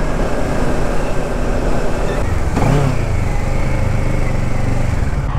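Kawasaki Ninja 650's parallel-twin engine running under way, with the engine note changing pitch about halfway through.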